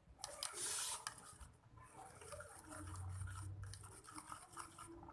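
Homemade glue-free slime being worked by hand, with soft irregular rubbing and scraping sounds that are loudest in the first second.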